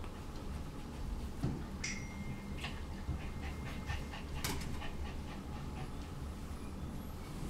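A young puppy's soft panting and sniffing as it moves about on a grooming table. A few light clicks sound, the sharpest about two and a half and four and a half seconds in.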